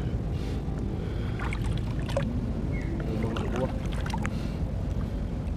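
Shallow seawater sloshing and splashing around the legs of someone wading, with scattered small splashes over a steady low water rumble.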